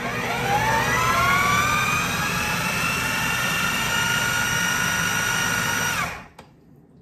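Electric food processor running: its motor whine rises in pitch as it spins up over the first two seconds, holds steady while mixing the bowl's contents, then cuts off about six seconds in.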